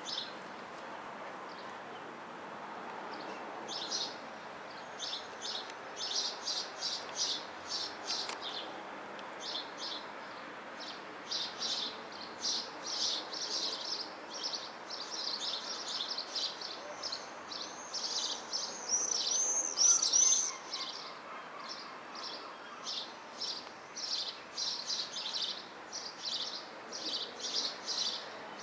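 Small birds chirping in quick repeated notes, with a louder run of rapid sliding notes about twenty seconds in, over a faint steady background noise.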